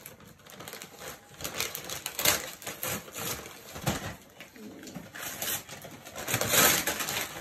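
Gift wrapping paper being torn and crackled by hand as presents are unwrapped, in irregular rips and rustles, with louder tears about two seconds in and again near the end.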